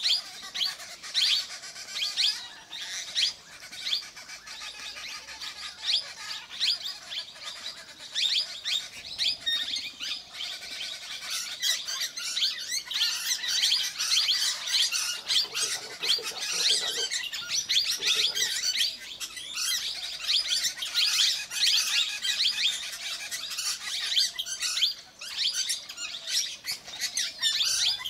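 Plum-headed parakeets squabbling: many short, shrill chirps and squawks in quick, overlapping succession, thickest in the second half.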